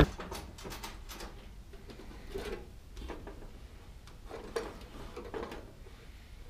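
Faint scattered clicks and rustles of hands handling an electric heater's sheet-metal wiring compartment and its paper instruction card.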